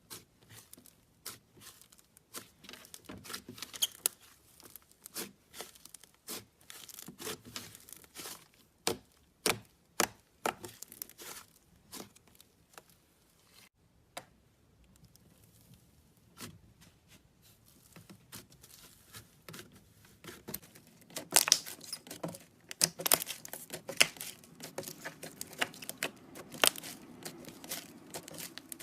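Slime being squeezed and stretched by hand: an irregular run of sticky crackles and pops, thickest and loudest about three quarters of the way through.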